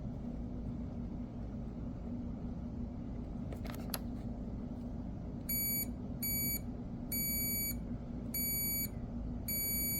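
Multimeter continuity tester beeping in five short bursts of about half a second each, starting about halfway in, over a low steady hum. The beeps show continuity between the XT60i connector's centre 'I' pin and the positive wire.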